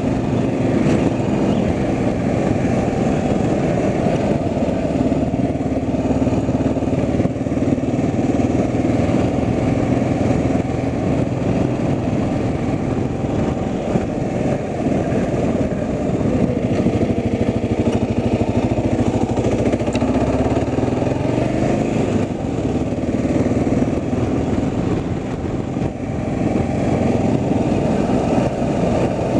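Vehicle engine and road noise: a steady, unbroken rumble.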